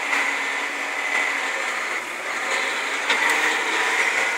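Steady drone of a tractor heard from inside its cab as it pulls a disc across the field, a constant whir with no change in pace.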